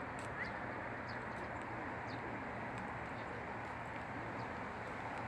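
A steady breeze blowing, with faint short bird chirps now and then.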